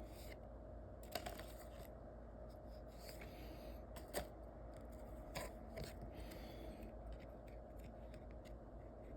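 Trading cards being handled: brief rustling and cards sliding against each other, with a few sharp clicks about one, four and five seconds in.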